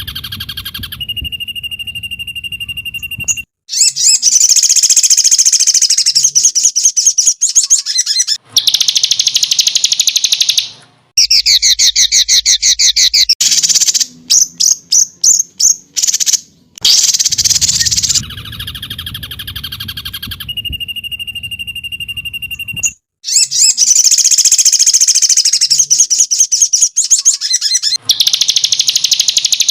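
Songbird masteran (training recording) of loud, rapid, high-pitched trills and chattering bursts, in spliced segments that start and stop abruptly, with parts of the sequence repeating.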